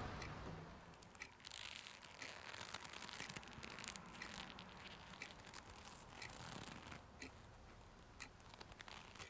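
Faint, irregular clicking of typing on a MacBook laptop keyboard.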